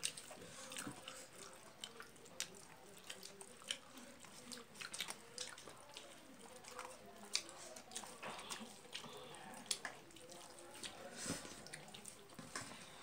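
Eating sounds: a person chewing rice by hand-fed mouthfuls, with faint, irregular wet mouth clicks and smacks, and fingers mixing rice on a steel plate.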